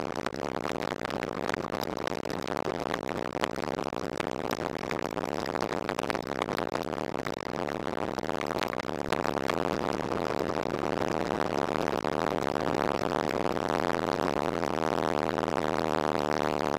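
Motorcycle engine running steadily at low speed while riding, picked up by an action camera mounted on the bike, with scattered clicks and rattles along the way.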